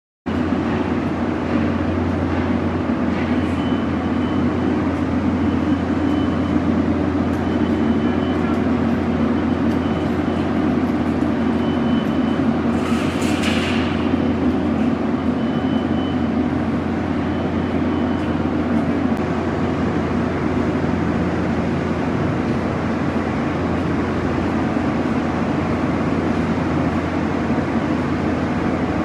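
A steady low mechanical hum, like an engine or motor running at constant speed, with a brief hiss about thirteen seconds in.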